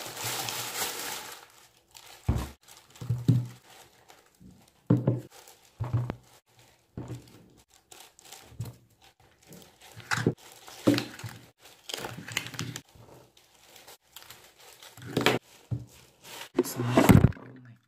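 Plastic shopping bag rustling as groceries are pulled out, then a series of knocks and thuds as plastic bottles and cartons are set down on a table, with more bag rustling between them.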